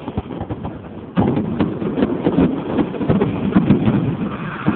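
Fireworks going off: a sudden bang about a second in, followed by a run of rapid crackling pops.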